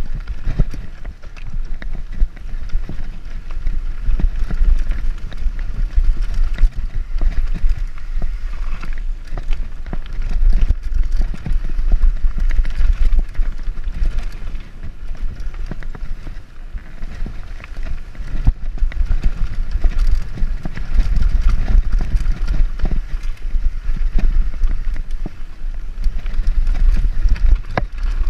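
Mountain bike riding fast down a rough dirt trail: the bike rattles and clatters over bumps and roots without a break, under a steady low rumble of wind buffeting the microphone.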